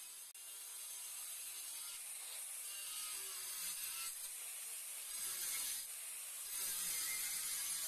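Makita handheld marble saw with a diamond blade cutting through a ceramic tile, a steady high grinding noise that grows louder after about five seconds as the cut goes on.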